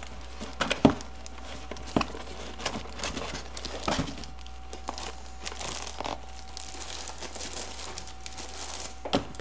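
Plastic bag around a computer power supply crinkling as the unit is handled and lifted out of its cardboard box, with several sharp knocks, the loudest a little under a second in.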